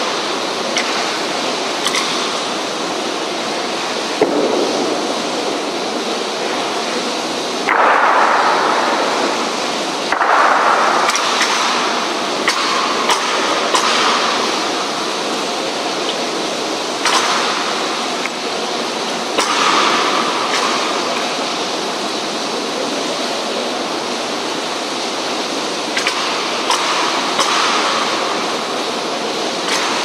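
Steady hiss of falling rain, with several louder surges lasting a few seconds each.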